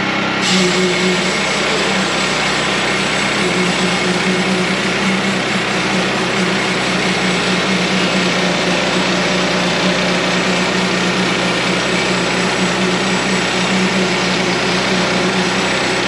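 Woodland Mills portable bandsaw mill running under its gasoline engine, the blade cutting slowly along a log; the sound picks up and brightens about half a second in, then holds steady.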